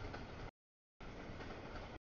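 Rushing, rumbling noise of a passing double-stack intermodal freight train, with no horn or bell. The sound cuts out abruptly to dead silence about half a second in and returns half a second later: audio dropouts in the recording.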